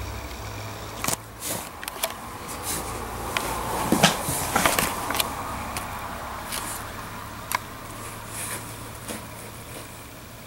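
A dog rolling and rubbing on the floor in a sneezing fit: irregular scraping and rustling with sharp snorts and sneezes, the loudest cluster about four seconds in. A steady low hum runs underneath.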